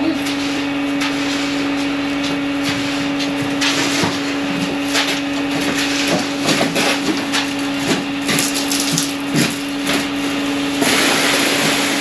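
Wet concrete being raked and spread with hand tools: repeated scrapes and knocks over a steady machine hum. Near the end comes a louder rushing scrape as a wheelbarrow load of concrete is tipped out.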